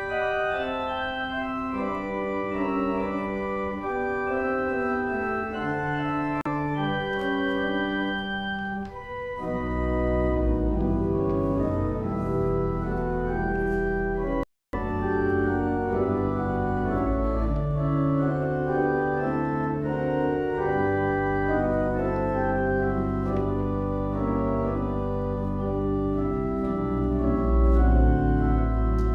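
Church organ playing slow held chords; deep pedal bass notes come in about a third of the way through, and the sound drops out for a split second about halfway.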